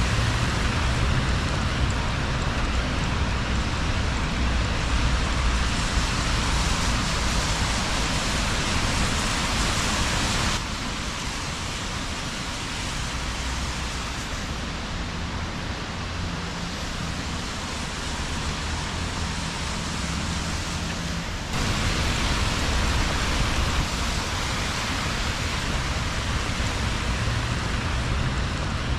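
Steady hiss of rain on a wet city street, with the low rumble of passing traffic. The sound drops suddenly to a quieter stretch about ten seconds in and jumps back up about twenty-one seconds in.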